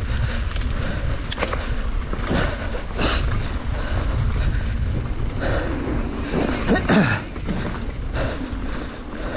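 Mountain bike riding over a dirt singletrack: a steady rumble of tyres and wind on the microphone, with the bike rattling and knocking over bumps, loudest about seven seconds in.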